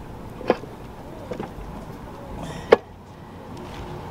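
Sharp knocks and a few lighter taps as a 4L60E transmission with its front pump is worked into place against the engine. One knock comes about half a second in, and the loudest just before three seconds in.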